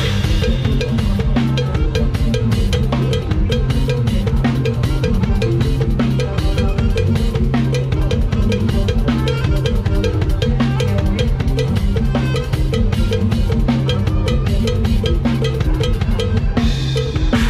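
Drum kit played through a fast lam sing groove, with rapid kick, snare and rim strokes over a steady band backing with a held bass line.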